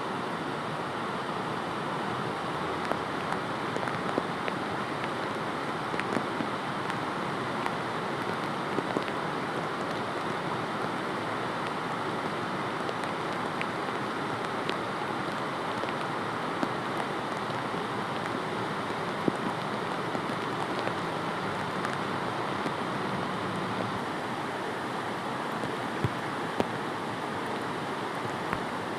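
Steady rushing water with a few faint, scattered ticks, the kind of sound a flooding stream makes.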